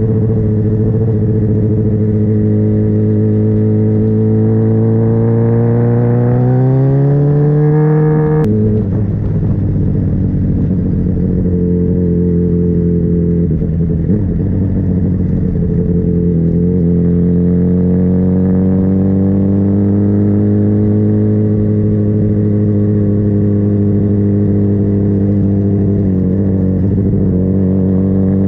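Motorcycle engine running under way. Its pitch climbs as it accelerates, drops suddenly about eight seconds in, then holds steady and rises gently again later on.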